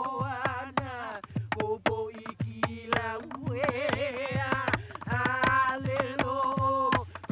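Hawaiian chant sung in a sustained, wavering voice over regular percussion beats a few times a second, the accompaniment for a hula.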